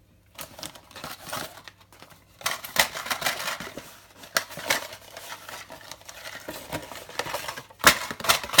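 Packaging being handled and opened: crinkling and rustling with irregular clicks and taps, and a few sharper clicks near the end.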